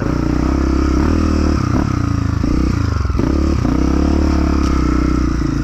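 Off-road trail vehicle engine running under load, its revs repeatedly rising and dropping as the throttle is worked.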